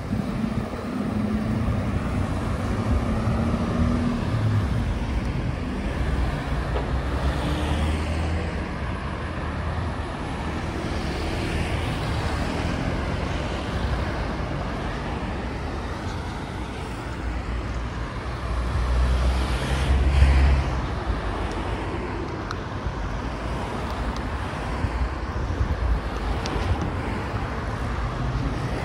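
Road traffic: cars passing on a city street, a steady rumble of engines and tyres. A louder vehicle goes by about two-thirds of the way through.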